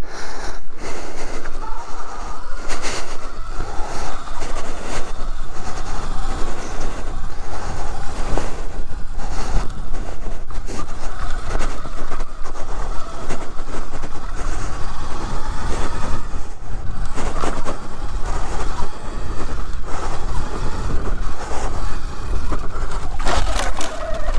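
Sur Ron X electric dirt bike ridden over a rough dirt trail, picked up by a microphone sitting loose inside the rider's helmet: heavy rumble and buffeting with frequent knocks and rubbing of the mic, over a steady high whine from the bike. A sharp knock comes near the end as the microphone drops out of the helmet.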